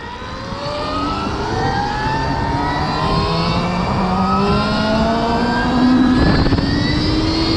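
Stark Varg electric dirt bike's motor whining under acceleration, the whine climbing steadily in pitch, with wind and road noise growing as speed builds.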